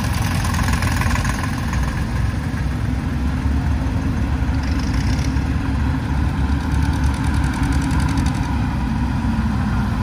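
Vintage tractor engine idling steadily, a low, even rumble.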